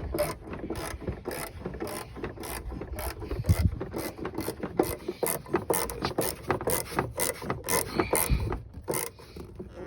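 Spring-loaded plastic taillight retaining nut being finger-tightened, its ratchet clicking about three times a second. The clicking is the spring-loaded ratchet letting the nut slip so the plastic is not over-tightened; it thins out near the end.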